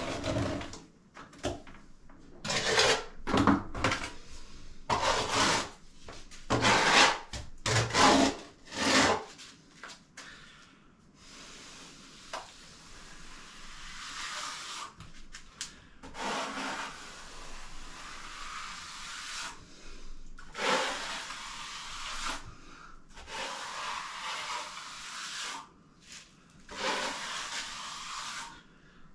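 A trowel scraping and spreading wet cement render over a wall. The first several seconds are short, quick strokes, followed by longer, steadier smoothing sweeps.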